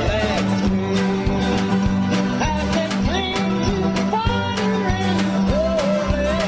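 A band playing a country song: guitar and a sliding lead melody over a steady low drone and a regular beat.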